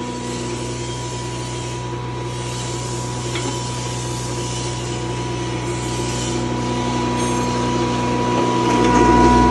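Belt-driven fertiliser and chemical grinding machine running steadily with a constant hum, getting a little louder near the end.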